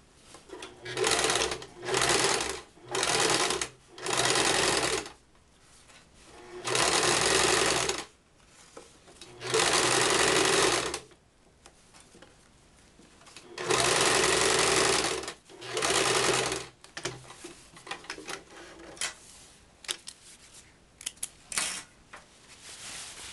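Electric household sewing machine stitching the second pass of a French seam in about eight short runs of one to two seconds each, with pauses between them. The stitching stops after about seventeen seconds, and a few light clicks and handling sounds follow.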